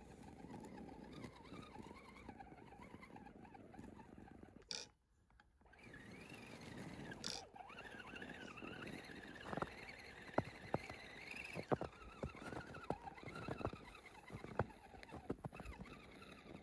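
Small electric motor and gearbox of an RC crawler whining, rising and falling in pitch with the throttle, as its tyres churn through snow. A short gap comes about five seconds in, and a series of sharp ticks runs through the second half.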